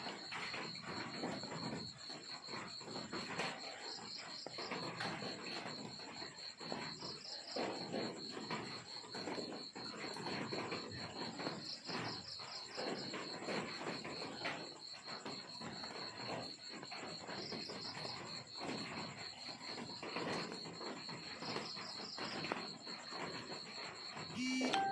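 Crickets trilling steadily in a fast, even, high-pitched pulse, with a second insect adding short higher chirp groups every two to three seconds. Soft irregular scuffing and rustling sounds run underneath, and a brief louder sound comes right at the end.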